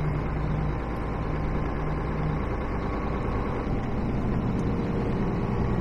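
Truck engine running steadily with a low hum, heard from inside the cab.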